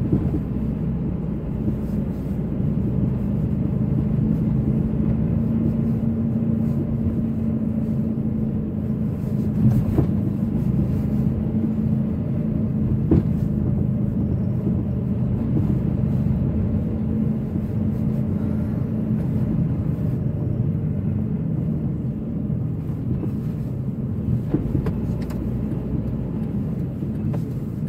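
Engine and road noise heard from inside a moving car's cabin: a steady low drone with an engine hum that fades about two-thirds of the way through. Two small knocks come near the middle.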